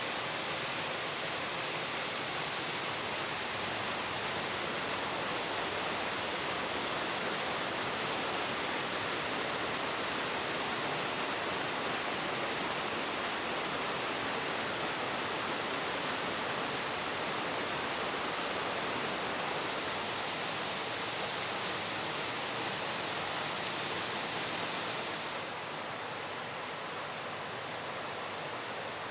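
Waterfall: a steady, even rush of falling water. About 25 seconds in it drops a little in level and turns duller, losing some of its hiss.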